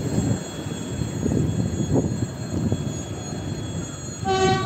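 Ivolga EG2Tv electric multiple-unit train rolling past, its wheels rumbling and clicking over the rails. Near the end a short tone with several overtones sounds for about half a second.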